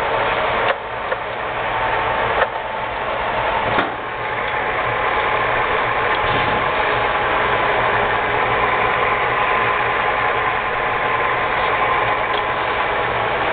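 LG2080 20x80 engine lathe running, its gear train and lead screw turning with a steady mechanical whir and gear chatter. A few sharp clunks come in the first four seconds.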